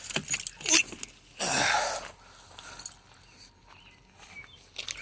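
Clicks and knocks of handling, then a loud scraping rub about half a second long, about one and a half seconds in, as a lead-acid battery is lifted out of its well in the plastic kayak hull.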